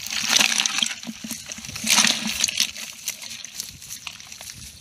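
Wet sloshing and splashing from a bucket of live frogs in muddy water, with louder bursts near the start and about two seconds in.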